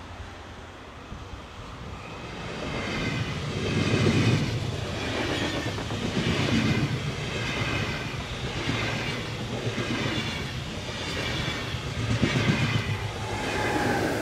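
SBB IC 2000 double-deck passenger train passing close by: a rush of wheels on rail that grows as it nears, with a swell about once a second as each coach's bogies go past.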